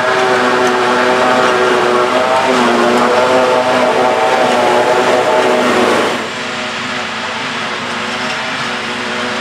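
John Deere 7480 self-propelled forage harvester chopping grass, with the tractor pulling the silage wagon alongside: a steady machine hum of engine and chopping drum that dips briefly in pitch about two and a half seconds in. About six seconds in it turns a little quieter and changes in tone.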